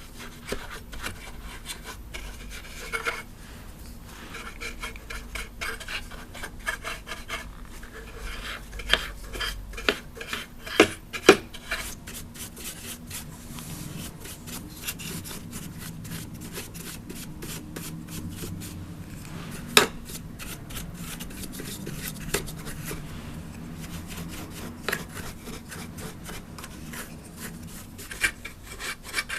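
A large brush dusting a plastic Lemax Spookytown animatronic decoration: bristles rubbing and sweeping over the plastic in quick, continuous strokes. A few sharp plastic clicks stand out, two close together about eleven seconds in and one near twenty seconds.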